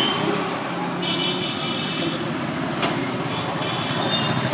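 Busy street ambience: steady road traffic noise with voices in the background.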